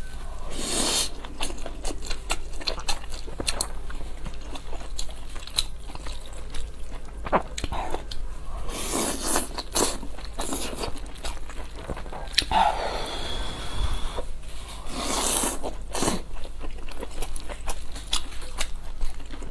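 Close-miked eating of glass noodles and dumplings: steady wet chewing and lip-smacking clicks, broken several times by loud noisy slurps as mouthfuls of noodles are drawn in.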